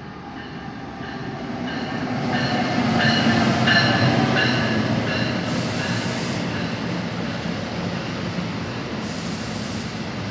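NJ Transit ALP-46A electric locomotive and bi-level commuter coaches rolling into a station. The rumble grows to its loudest as the locomotive passes about four seconds in, then holds steady as the coaches roll by, with two brief stretches of high hiss or squeal.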